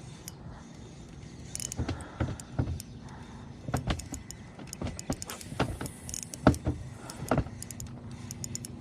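Boat motor running steadily, with scattered sharp clicks and knocks, the loudest about two-thirds of the way in.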